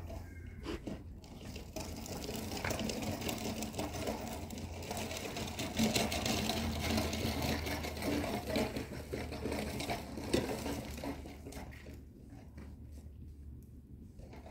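Paintbrush scrubbing against a rough cement wall in quick repeated strokes, over a low steady hum; the brushing stops about twelve seconds in.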